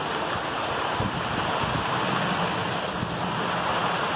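Heavy rain falling steadily on waterlogged ground, puddles and plants, an even unbroken hiss.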